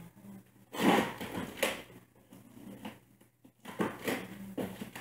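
Cardboard shipping boxes being handled and the top one worked open: knocks, scraping and rustling of cardboard, the loudest knock about a second in.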